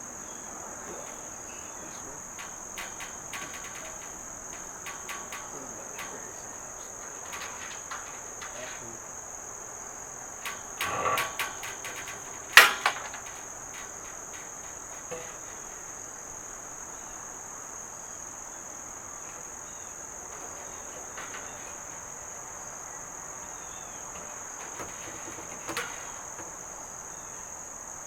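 A steady high-pitched insect drone, like crickets, runs throughout, with scattered clinks and clatter of galvanized steel garden-bed panels and bolts being handled; the loudest is a sharp metal knock about twelve and a half seconds in.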